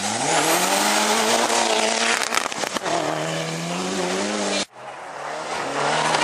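Rally car engine at high revs as it slides past on gravel, its pitch rising and then dropping at a gear change about two and a half seconds in, with the hiss of gravel spray from the tyres. It cuts off suddenly near the end, and a second rally car is heard approaching at high revs.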